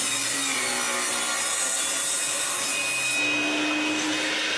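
Table saw running with its blade cutting into a wooden board, a steady sawing noise over the motor's hum. The cut is shallow: the blade is set too low to go all the way through.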